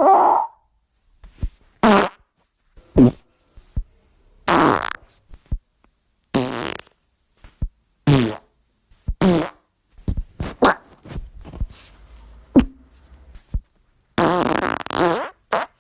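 A string of farts, about a dozen short ones one after another with gaps between, many with a buzzing, raspy pitch. The longest, about a second, comes near the end.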